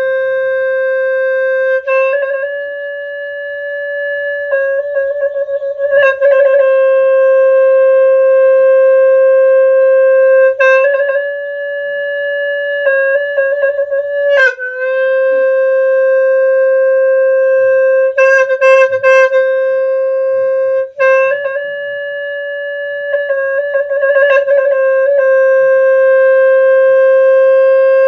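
Cambodian buffalo-horn snaeng played in long held notes, stepping between two or three nearby pitches, with quick trilled ornaments between the held notes at several points.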